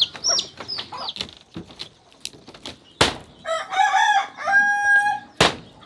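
Chickens calling, with high falling peeps in the first second, then a rooster crowing from about three and a half seconds in. Two sharp knocks from a knife chopping on a wooden board land about three seconds in and again near the end.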